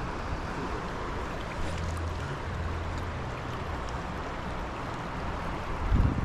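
Steady rush of flowing stream water. A louder low rumble, like wind on the microphone, comes in near the end.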